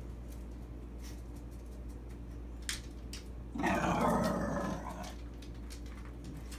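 A dog growling in one short burst of about a second and a half, partway through, during rough play between a Basenji and a Chihuahua puppy. A single light click comes shortly before it.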